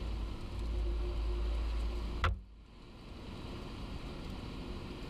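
John Deere 6930 tractor's six-cylinder diesel engine running steadily. A sharp click about two seconds in, after which the sound abruptly drops to a quieter, rougher rumble that slowly grows louder.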